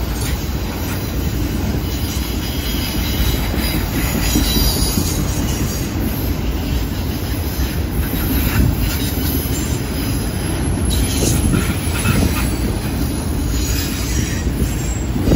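Freight train of autorack cars rolling past on a curve: a steady rumble of steel wheels on the rails, with a high wheel squeal coming and going from the wheel flanges grinding in the curve.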